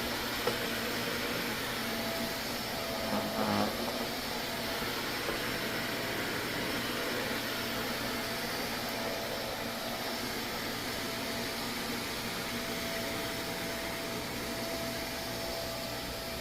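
Vacuum cleaner running steadily with a constant whine, with a few brief knocks about three seconds in.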